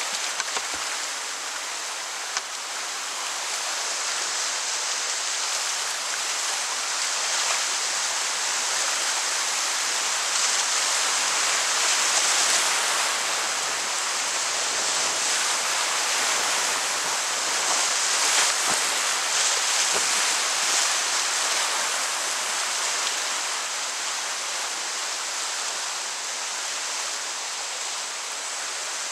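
Whitewater river rapids rushing steadily, swelling a little twice, with a few brief paddle splashes.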